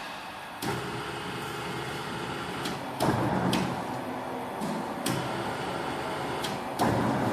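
Electromechanical three-roll plate rolling machine running: a steady motor hum that starts just under a second in, with several sharp metal knocks and clanks through it.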